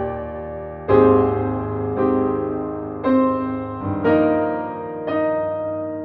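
Slow, soft piano music. A new note or chord is struck about once a second and left to ring and fade.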